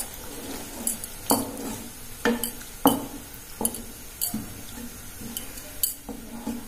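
Wooden spatula stirring a thin kurma gravy in a pan, knocking and scraping against the pan's sides and base at an uneven pace, about ten distinct knocks. This is the mixing-in of turmeric and roasted-gram flour slurry.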